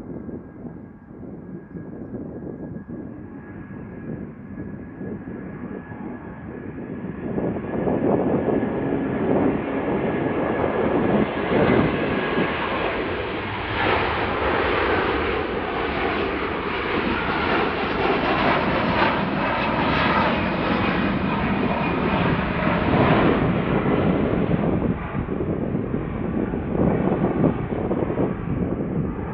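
Airbus A330 twin-engine jet airliner taking off at full power. The engine noise builds over the first several seconds of the takeoff roll, is loudest around lift-off and climb-out, and stays strong as it climbs away. A thin high steady whine is heard at first and fades.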